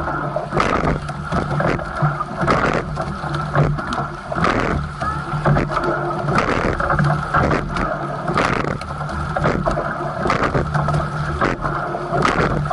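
Racing coxless rowing four under way: water rushing along the hull, with a knock from the oars in their gates at each stroke, about one stroke every two seconds. A steady low hum runs underneath.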